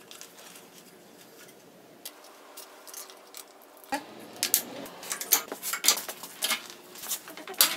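A few faint clicks, then from about four seconds in a run of sharp metal clinks and knocks as angle grinders are set onto a steel square-tube rack.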